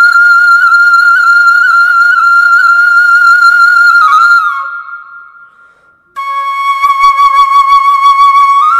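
Background music of a solo flute holding long notes: one long note fades away about four seconds in, and after a short gap a second, slightly lower note starts suddenly about six seconds in.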